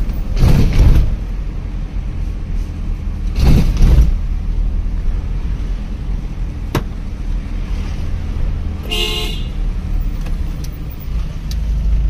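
Car engine and road rumble from a car driving slowly, with two louder surges of rumble about half a second and three and a half seconds in. A car horn gives one short honk about nine seconds in.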